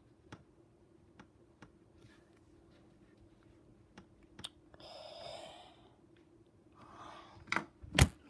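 Faint, scattered clicks and scratches of a pen drawing on a cotton sock, with a soft rustle about five seconds in. Two loud knocks near the end.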